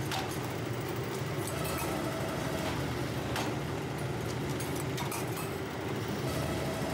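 Metal-forming press drawing steel oil-filter cans, its machinery running with a steady low hum, and a few sharp clinks as the steel cans are handled.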